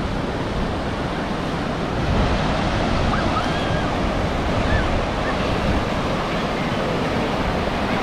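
Ocean surf: waves breaking and foam washing through the shallows in a continuous rush.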